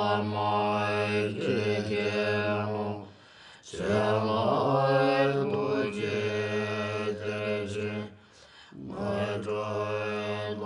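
Buddhist mantra chant: a low, sustained chanting voice holding long phrases, broken twice by brief pauses for breath.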